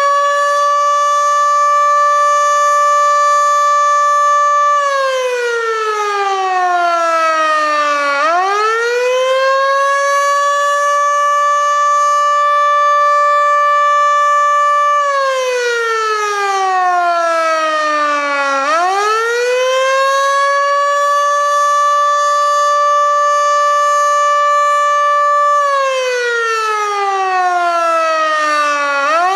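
Federal Sign & Signal Model 2 outdoor warning siren sounding the Attack signal on test: a single loud tone holds high for about five seconds, slides down for about three seconds, then quickly winds back up, three times over.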